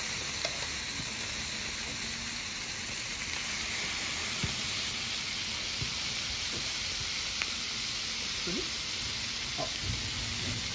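Marinated meat skewers and chunks of meat sizzling steadily on a stainless steel barbecue hotplate, with a few light clicks of metal tongs.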